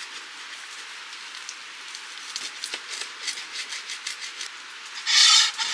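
Knife and fork cutting food on a plate: a run of small crunchy clicks, then a louder, brief scrape with a slight ring near the end, over a steady hiss.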